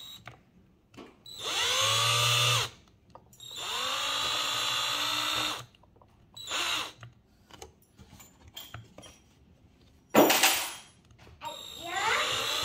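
Cordless drill driving screws into a wooden tabletop, running in several bursts of a second or two that each spin up with a rising whine. A short, louder burst comes about ten seconds in.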